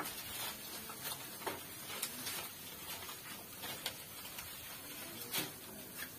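Leafy branches rustling as they are handled by hand, with stems snapping now and then. It comes as a scatter of irregular small crackles and snaps, with a sharper snap about two seconds in and another near the end.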